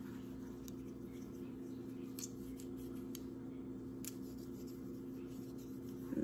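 Faint rubbing and a few light ticks as an alcohol pad is wiped over a plastic insulin pump, under a steady low hum.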